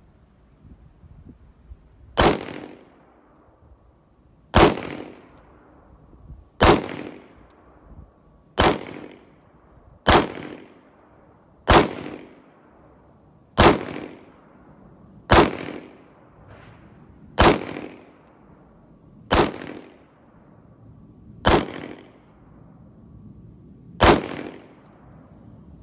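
Sig Sauer P320 subcompact 9mm pistol fired in slow, deliberate single shots, twelve in all, about two seconds apart, each sharp crack trailing off briefly.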